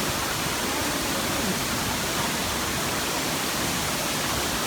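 Steady rush of falling water from Mantayupan Falls, a waterfall about 96 metres high, heard close by as an even, unbroken noise.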